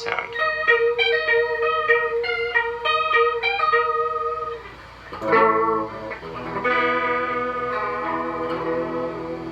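Stratocaster-style electric guitar with three single-coil pickups, played through an amp: quick picked single notes over a held note, then a chord struck about five seconds in and left ringing.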